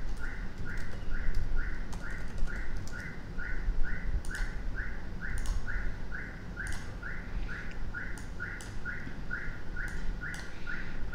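A short high chirp repeating very evenly, about three times a second, with a few sharp mouse clicks scattered through it.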